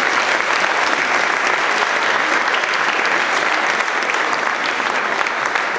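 Audience applauding steadily as a guest is welcomed onto the stage.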